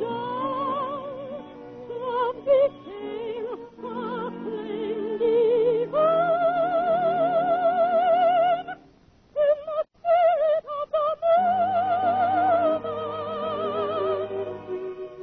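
Female soprano singing an operatic song with wide vibrato and long held high notes, over musical accompaniment, with a short break about nine seconds in. The sound is narrow and thin, as in an old 1940s radio recording.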